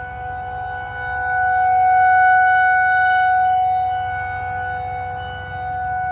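Outdoor warning siren sounding a steady tone for a severe thunderstorm warning; it swells louder about a second in and fades back again.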